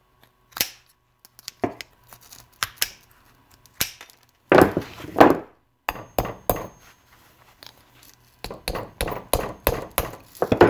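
Tin snips clipping the nickel strip off the end of an A123 26650 LiFePO4 cell, a few sharp snips, with a louder scraping rustle of handling near the middle. Then a hammer gently taps the leftover nickel tabs flat against the cell's end: light metal taps, coming quickly near the end.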